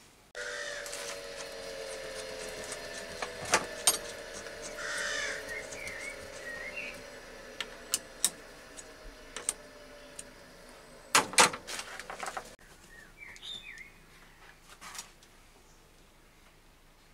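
Sharp metallic clicks and knocks of tools being handled on a lathe's toolpost, the loudest a quick cluster about eleven seconds in, over a low steady hum that stops about twelve seconds in. A few bird calls come through around five to seven seconds in.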